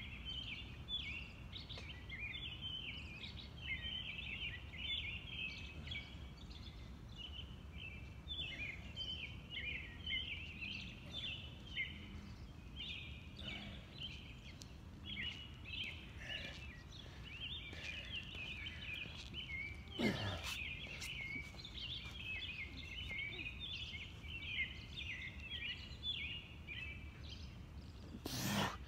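Many birds chirping and calling together, with a steady low background rumble. A brief sharp noise comes about twenty seconds in, and a louder knock comes near the end.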